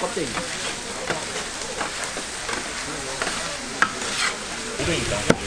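Pork offal sizzling on a large steel griddle as it is stirred and turned over, a steady frying hiss dotted with short sharp clicks and scrapes.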